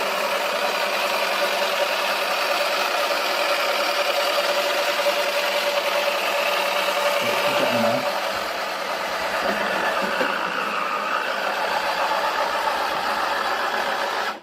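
Toy washing machine's small motor spinning the drum with a small detergent dispenser ball inside, a steady whirring whine with rattle. About eight seconds in the whine fades and the sound drops slightly before running on.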